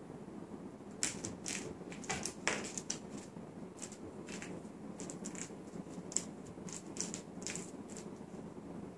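A kitten's paws and claws scrabbling on a wooden floor as it bats a small toy mouse around, giving irregular light taps and clicks, busiest about two to three seconds in, over a steady low background hum.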